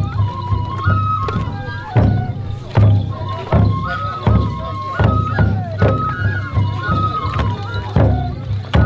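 Japanese folk festival music: a high bamboo flute melody of held, stepping notes over steady taiko drum beats, about one stroke every three-quarters of a second.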